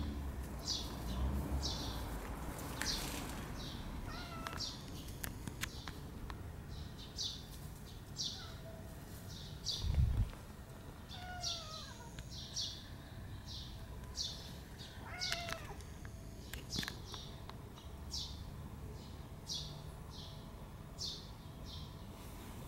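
A red tabby cat meowing several times, a few seconds apart, each meow falling in pitch. Short high chirps repeat about once a second behind it, and a dull thump comes about ten seconds in.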